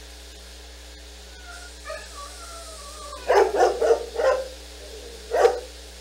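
A dog gives a faint high whine, then a quick run of four barks about three seconds in and a single bark near the end.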